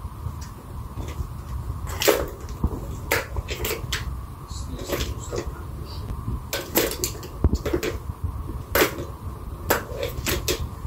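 A kitten batting the balls in a three-tier plastic ball-track cat toy: irregular sharp clicks and knocks as the balls and paws strike the plastic, over a steady low hum.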